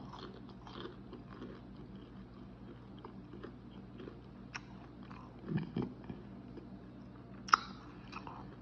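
Close-up chewing and biting of crunchy fried food: a run of small crackling crunches, with a louder bite about five and a half seconds in and a sharp crunch near the end.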